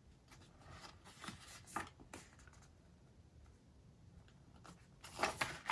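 Faint scattered rustles and light taps of paper leaflets and packaging being handled, growing louder near the end.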